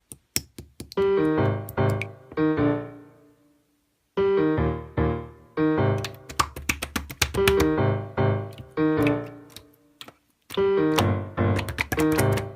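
Piano chords played in short phrases, with brief breaks about three seconds in and again near ten seconds.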